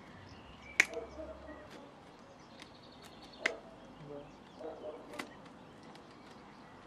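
Sharp metallic clicks and snaps of wire lath mesh being pulled taut and fastened by hand over reed matting, three loud clicks a couple of seconds apart with fainter ticks between them.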